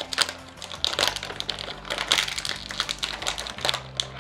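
Plastic snack wrapper crinkling and crackling in quick, irregular clicks as a package of umbrella cookies is handled and opened.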